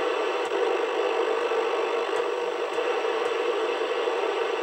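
Midland 4001 FM CB radio with its squelch open, hissing steady static from its speaker as the channel knob is turned across the band.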